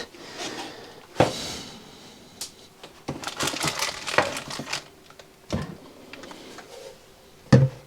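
Cardboard box and packaging being handled: several scattered knocks and taps, with crinkling of wrapping in between.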